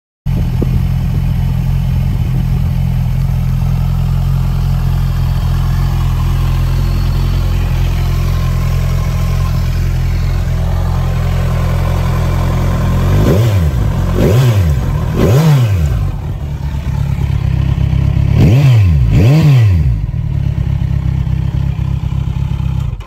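2016 Kawasaki Z1000SX's 1043 cc inline-four engine idling steadily through an aftermarket Fuel exhaust, then revved up and back down five times: three quick blips, a short pause, then two more. The sound cuts off suddenly near the end.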